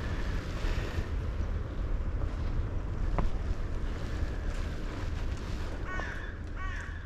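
Steady low wind rumble on the camera microphone, with a single click about three seconds in. Near the end a crow caws twice.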